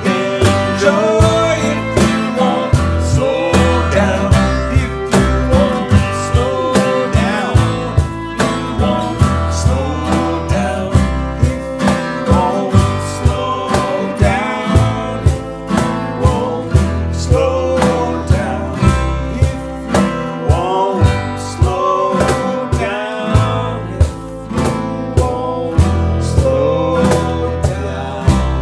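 Acoustic string band playing a song: upright bass plucked on a steady beat, strummed acoustic guitar and fiddle, with male voices singing.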